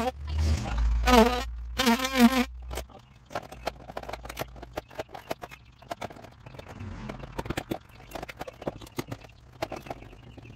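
A DeWalt cordless drill runs in short bursts, its motor whine wavering in pitch, for about the first two and a half seconds. After that come scattered light clicks and taps of tools being handled against the siding.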